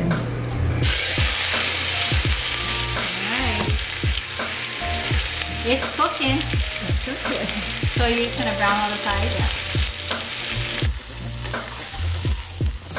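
Chuck roast searing in hot olive oil in an enameled cast-iron Dutch oven: a steady sizzle that starts about a second in. A fork clicks lightly against the pot now and then.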